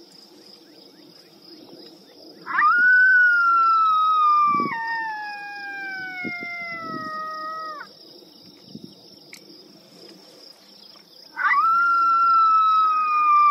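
Two long, loud coyote howls. Each starts with a sharp rise in pitch and then slides slowly downward. The first lasts about five seconds; the second starts near the end. A steady high-pitched whine runs underneath.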